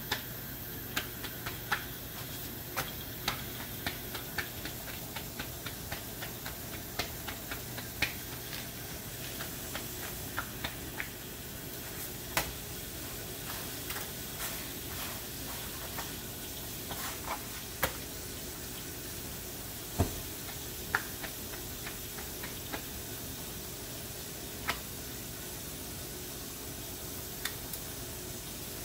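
Steady hiss with scattered light crackles and taps as a whole-wheat roti cooks and is handled on a hot iron pan. One sharper knock comes about twenty seconds in.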